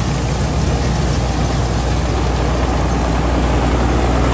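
Tracked rice combine harvester at work in dry rice: a steady low engine drone under the dense rushing noise of its cutting and threshing machinery and the chaff and straw blown out behind it, growing a little louder as the machine passes close.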